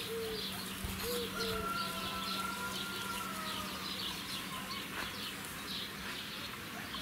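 Birds calling: small birds chirping over and over, with low cooing calls in the first couple of seconds and a faint drawn-out whistle that slowly falls, over a steady low hum.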